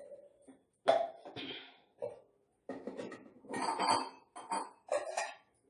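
Stainless steel kitchen containers knocking and clinking on a counter as they are handled: several separate clatters, the sharpest about a second in.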